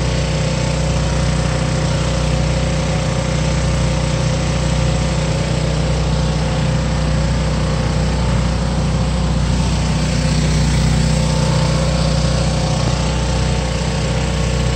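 Tractor engine running steadily at an even, unchanging pitch and level.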